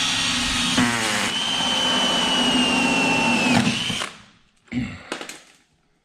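Cordless drill running steadily as it bores a hole through the race car's body panel, which is thought to be fiberglass, then stopping about four seconds in. A few brief clatters follow.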